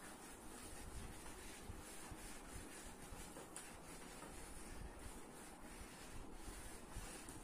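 Faint rubbing of a whiteboard eraser wiped back and forth across a whiteboard, in repeated strokes, clearing off marker writing.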